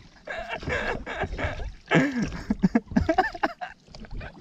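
A woman's voice making playful wordless vocal noises: short sliding sounds that rise and fall, with the loudest about two seconds in.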